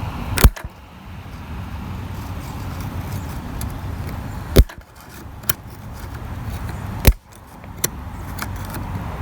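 Sharp metallic clicks a few seconds apart, with fainter ticks between them, as tools work on the trimmer's shaft to grip the broken drive cable, over a steady background noise.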